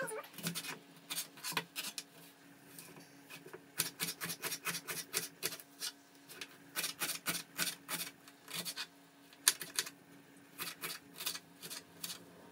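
Kitchen knife chopping an onion on a cutting board: runs of quick knife strokes, several a second, each a sharp tap on the board, broken by short pauses.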